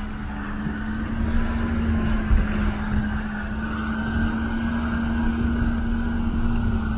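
4x4 engine running at a steady pitch while the vehicle wades through a river, with water rushing and splashing along its side. One short thump about two and a half seconds in.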